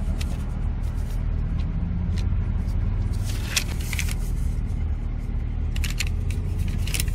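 A car engine running steadily, heard from inside the cabin, with a paper receipt crinkling in a hand in short bursts about three and a half seconds in, around six seconds and near the end.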